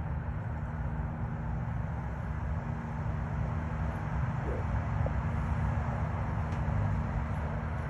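Steady rumble of road traffic with a faint constant hum underneath.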